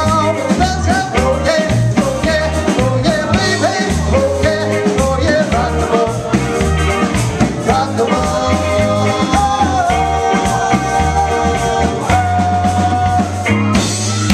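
Live rock band playing: a man singing over electric guitar and drums, with long held notes in the last few seconds.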